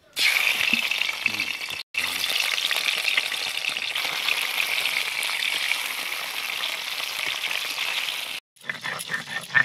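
Pieces of bata fish sizzling loudly in hot oil in a steel kadai, starting suddenly as the fish goes into the pan, with two brief breaks in the sound.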